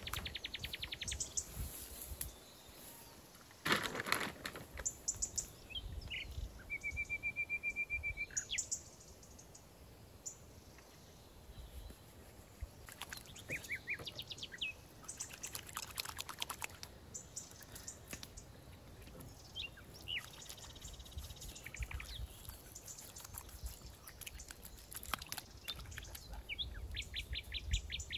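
Small birds singing in woodland: short high trills and chirps on and off, one a steady trill about two seconds long. Scattered clicks and crackles run throughout, with a louder sharp knock about four seconds in.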